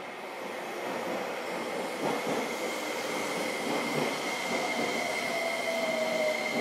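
Electrical and mechanical equipment of a JR Kyushu 305 series electric train, heard from inside the car while it stands at a station. A steady hum grows louder, with a few knocks. A high steady whine builds a few seconds in, and a lower tone that sinks slightly joins it near the end.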